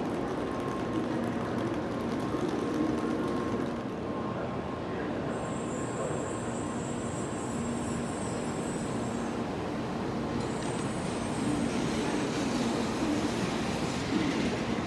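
Steady hum of a Shinkansen train at the platform, growing fuller and slightly louder over the last few seconds as the train begins to pull out.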